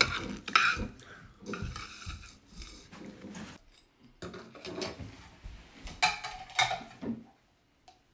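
Dishes and cutlery clinking and clattering as they are handled, in irregular knocks and rattles that stop about seven seconds in.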